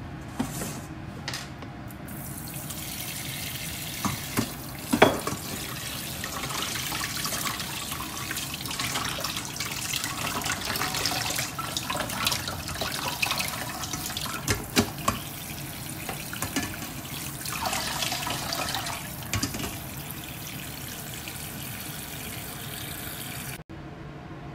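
Kitchen tap water running onto boiled liver in a stainless steel mesh strainer and splashing into the sink, starting about two seconds in and stopping abruptly near the end. A few knocks of the strainer or bowl sound over it, the loudest about five seconds in.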